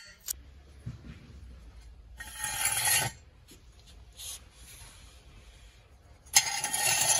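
Steel axle jack stand scraping across a concrete floor as it is slid out from under the van. There are two stretches of scraping: a short one about two seconds in and a longer one starting near the end.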